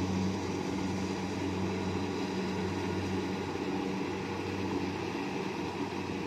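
Kubota rice combine harvester's diesel engine running steadily at a constant pitch, with the rumble and rattle of the machine's working parts.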